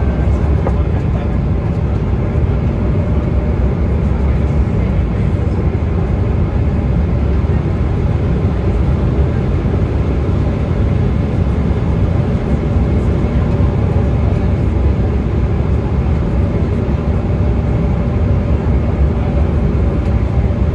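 Airliner cabin noise during the descent to landing: steady jet-engine and rushing-air noise, heaviest in the low end, with faint steady hums underneath.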